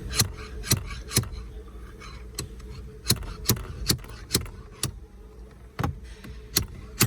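Small slide hammer knocking repeatedly, about a dozen sharp strikes mostly half a second apart, as it pulls a drilled-out push-start button from a car dashboard.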